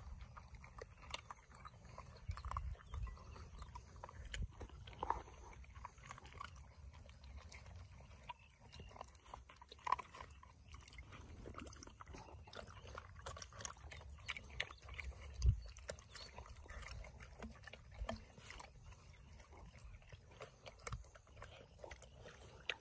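Retriever puppies eating dry kibble from a stainless steel bowl, with many small crunching and chewing sounds and kibble clicking in the bowl. There is one sharper knock about two-thirds of the way through.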